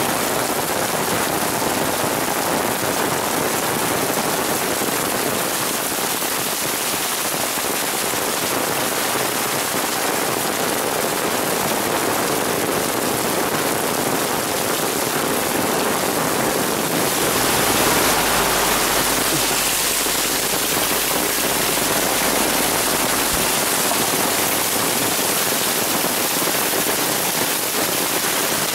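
Heavy downpour of rain, a steady hiss of hard rainfall. Past the middle it grows slightly louder and a low rumble joins for several seconds.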